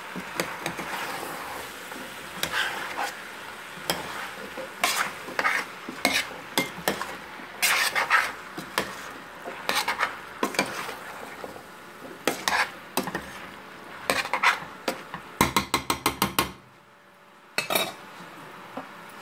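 A spoon stirring and scraping diced carrots, potatoes and peas in a stainless steel pot, with irregular clinks and scrapes against the metal over a steady sizzle. About three quarters of the way through comes a quick run of about ten clicks, then a short lull and one more clink.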